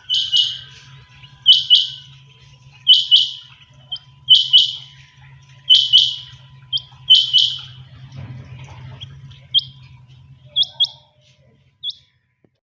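Quails calling: loud paired sharp notes repeated about every second and a half, six times, then a few shorter single notes that stop near the end. A faint steady low hum runs underneath.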